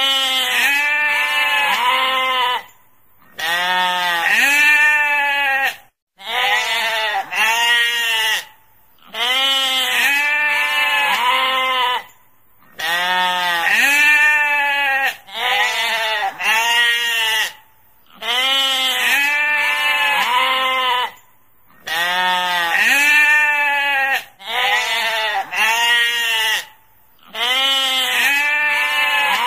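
Sheep bleating over and over, each call wavering up and down in pitch, in runs of two or three calls with brief pauses between them.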